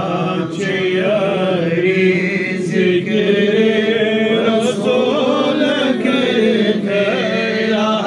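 A man chanting a devotional Islamic salaam, a salutation to the Prophet, into a handheld microphone, drawing out long melodic lines that rise and fall with hardly a break.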